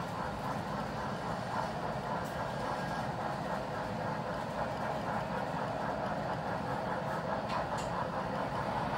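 Model freight train running on the layout's track: the steady rumble and clatter of its wheels on the rails as the cars roll past and away.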